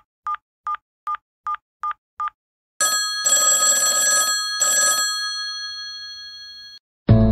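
Touch-tone telephone dialing: seven quick identical beeps, evenly spaced. An old-style telephone bell then rings in two bursts and fades away.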